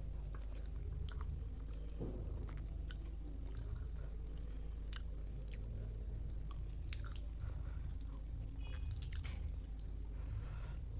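Close-up chewing of a rice-and-curry meal, with many small wet mouth clicks and crackles scattered through. A steady low hum runs underneath.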